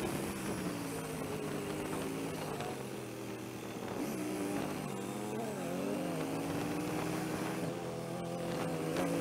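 Motorcycle engine running at low road speed, its note rising and falling quickly as the throttle opens and closes, over steady wind hiss. The footage is sped up four times.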